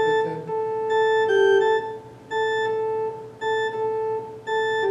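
Baldwin HT2 electronic organ playing a slow run of held notes, each sustained about a second with a short break between, in a plain steady tone with no decay.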